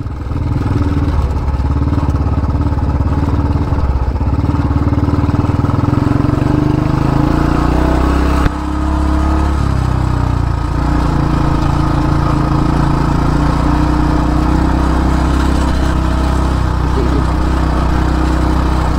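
Royal Enfield Classic 350's single-cylinder engine running steadily as the motorcycle rides along a loose sandy track. About eight and a half seconds in there is a short knock, and the engine note changes.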